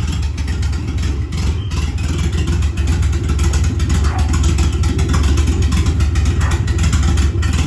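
A vehicle engine running steadily with a strong low hum, over a haze of road and wind noise.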